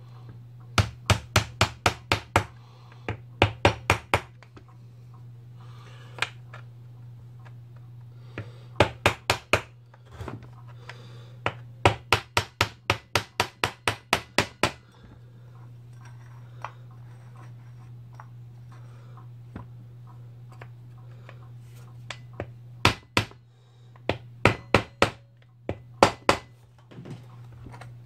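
A hammer tapping on a brass part of a Stihl MS180C chainsaw's oiler, in runs of several quick strikes about four a second with pauses between, to work the part into place in the housing. A steady low hum runs underneath.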